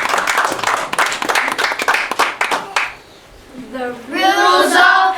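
Audience applause, many hands clapping, dying away about three seconds in. Then a child's voice begins speaking loudly to the audience.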